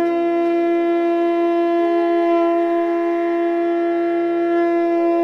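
A single long note blown on a horn-like wind instrument, held steady at one pitch.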